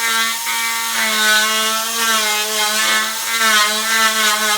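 Electric power tool running steadily at high speed, working on metal, with its pitch wavering slightly as it is loaded.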